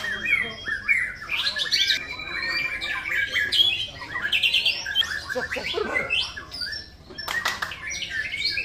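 Several caged white-rumped shamas (murai batu) singing over one another in a dense chorus of fast whistled phrases, glides and rapid trills, with a couple of sharp clicks about seven and a half seconds in.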